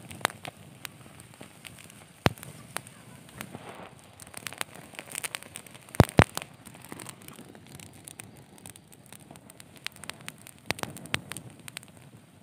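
Small fire of dry pine needles and twigs crackling, with scattered sharp pops; the loudest are a pair about six seconds in.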